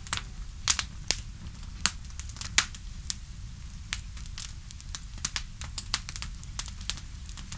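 Campfire crackling: irregular sharp pops of burning wood, several a second at times, over a steady low rumble.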